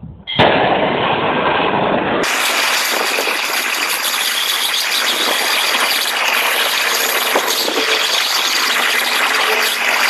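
Handheld brazing torch lighting with a sharp pop, then burning with a steady, loud hiss as the flame heats a copper pipe.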